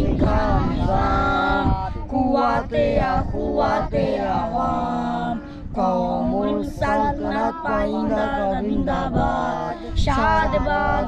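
Unaccompanied voices singing, with several long held notes.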